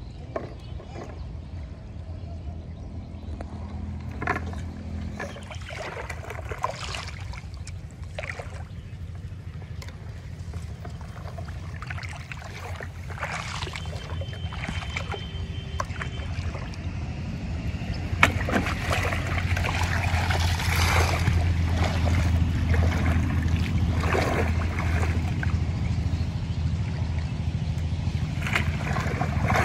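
Shallow pond water splashing, sloshing and trickling as it is stirred by wading and emptied from a plastic bottle, over a steady low rumble. The splashing grows louder and busier in the second half.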